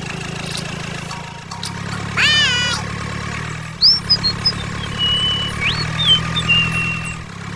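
A small motor hums steadily throughout. About two seconds in there is a short animal call, and from about four seconds on there are several brief high whistled chirps.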